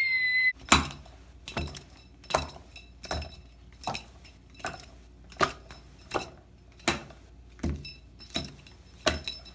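A run of sharp, clinking metallic clicks, roughly two a second at uneven spacing, after a high-pitched held squeal cuts off about half a second in.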